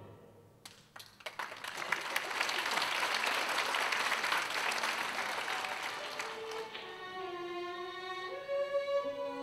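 Audience applause: scattered claps about a second in swell into steady clapping, which fades out after about six seconds. Slow violin and string notes then come in, held and stepping up in pitch near the end.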